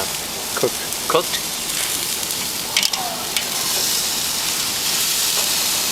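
Marinated lamb pieces sizzling on a very hot charcoal grill: a steady crackling hiss with a few sharp pops about three seconds in.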